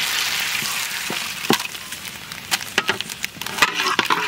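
Bay leaves and dried red chillies sizzling as they go into hot oil in an aluminium kadai, for a dal tempering; the sizzle is loudest at first and fades over about two seconds. After that a spatula scrapes and clicks against the pan as the spices are stirred.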